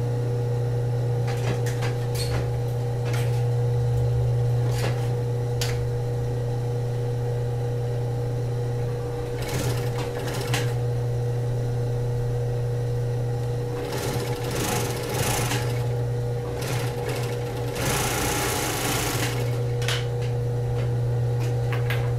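Industrial overlock (serger) machine running a seam on a bra cup: its motor hums steadily, with a few sharp clicks near the start and several louder bursts of sewing in the second half.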